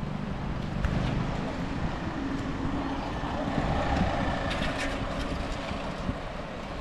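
Steady rushing roar of a swollen monsoon river in flood.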